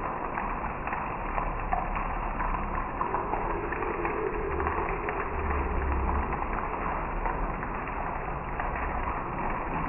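Heavy rain pouring onto a wet road and trees: a steady hiss with dense patter of drops. A faint low hum swells briefly about halfway through.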